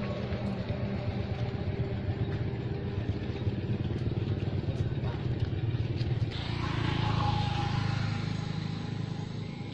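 A motor running steadily with a low hum, growing louder about six seconds in and fading near the end.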